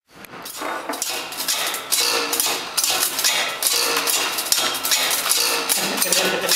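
A coil of black wire spinning on a spoked payoff reel as the wire is drawn off by a hand-turned spool: quick, continuous metallic clatter and clinking of the loose loops against each other and the reel, building up in about the first second.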